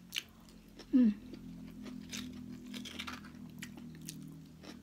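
Close mouth sounds of a person eating spoonfuls of soft ripe avocado: wet chewing clicks and smacks. About a second in comes a short falling hum of the voice, and then a low, steady hummed 'mmm' while chewing.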